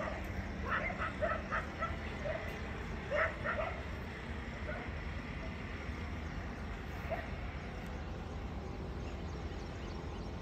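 A dog barking in short, repeated yaps during the first few seconds, over a steady low background rumble.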